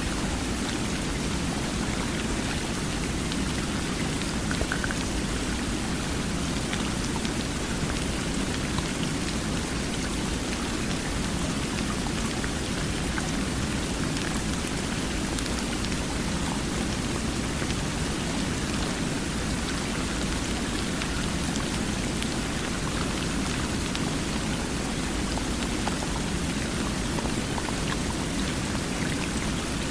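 Water rushing steadily and evenly, with a few faint ticks scattered through it.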